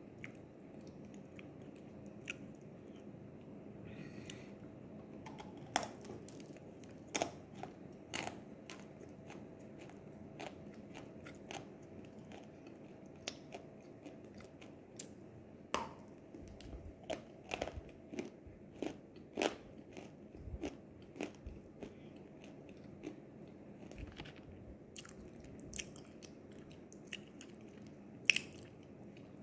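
Close-up mouth sounds of a person biting and chewing crunchy edible clay (nzu), a series of sharp, irregular crunches. They come thickest about halfway through, and the loudest is near the end.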